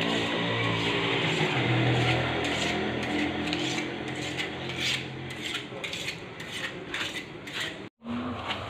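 A butcher's knife being sharpened: the blade is scraped again and again across a handheld sharpener, about two strokes a second, until the sound cuts off suddenly near the end.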